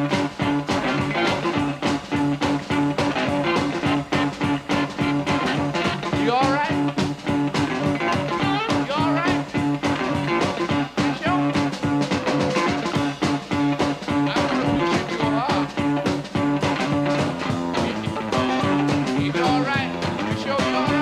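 Live electric blues band playing a funky instrumental groove: electric guitar with bending, gliding notes over a steady repeating bass line and a regular drumbeat.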